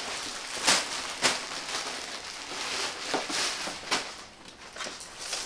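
Plastic packaging crinkling and rustling as clothing is handled and packed, with a few sharp crackles.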